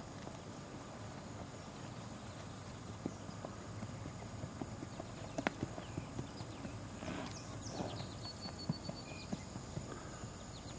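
Hoof falls of a barefoot Tennessee Walking Horse mare walking under saddle over grass and soft dirt: faint, irregular knocks and thuds. Insects chirp steadily in the background.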